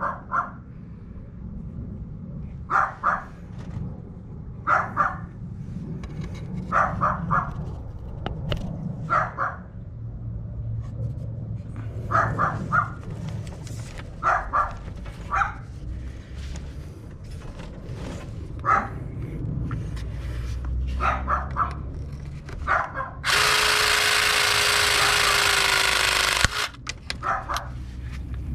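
A dog barking over and over, in quick pairs and threes every couple of seconds. Near the end a battery-powered press tool runs for about three seconds with a steady, slightly falling whine as it crimps a copper joiner onto the pipe.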